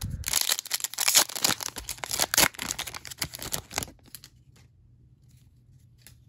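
Foil wrapper of a football trading-card pack being torn open and crinkled: a dense crackling tear that stops about four seconds in.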